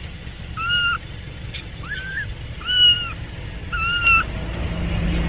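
Kitten meowing, four short high-pitched meows about a second apart, over a low rumble that grows louder near the end.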